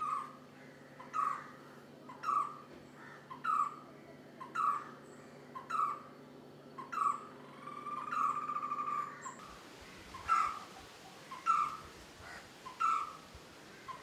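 White-cheeked barbet calling: a short, hollow call repeated about once a second, with one longer rolling call around eight seconds in.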